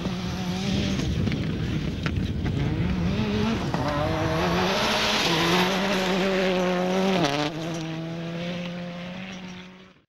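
Toyota Corolla WRC rally car's turbocharged four-cylinder engine running hard at high revs, with gravel spraying under the sliding tyres. The engine pitch steps down sharply about seven seconds in, then holds steady until the sound cuts off just before the end.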